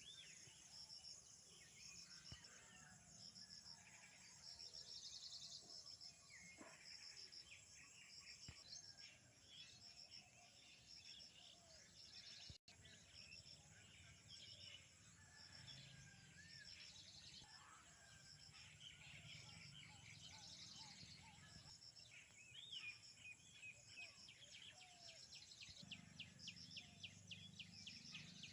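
Faint rural ambience: insects chirping in a steady pulsing rhythm, with several birds calling and whistling over it and a fast trill near the end. The sound briefly cuts out about twelve seconds in.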